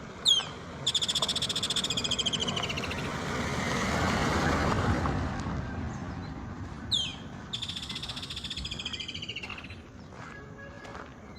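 A songbird sings the same phrase twice, each time a sharp high downslurred note followed by a rapid, slightly falling trill of about two seconds. Between the two phrases a broad rush of traffic noise swells and fades.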